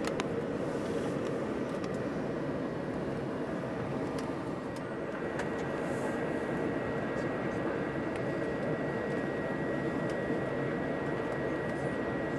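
Steady cabin noise of a passenger airliner in flight, heard from inside the cabin: engine and airflow rumble, with a thin steady whine coming in about five seconds in.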